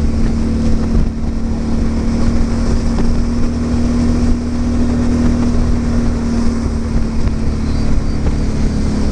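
Suzuki V-Strom 650's V-twin engine running at a steady pitch while the motorcycle is ridden, with a slight rise in pitch about halfway through.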